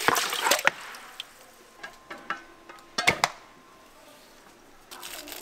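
Food-prep knocks and clatter: a quick cluster of sharp knocks in the first second and another about three seconds in.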